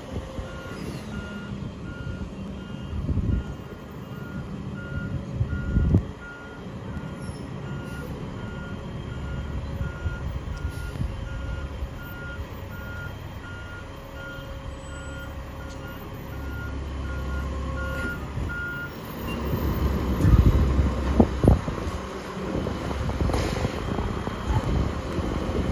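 Mack LR garbage truck with a Labrie Automizer side-loader body backing up, its reverse alarm beeping steadily over the low rumble of the engine. The beeping stops about 19 seconds in; then the engine runs louder, with a couple of heavy thumps.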